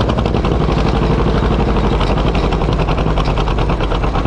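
1943 John Deere Model B's two-cylinder engine running steadily, its exhaust popping in a rapid, even beat from the upright stack.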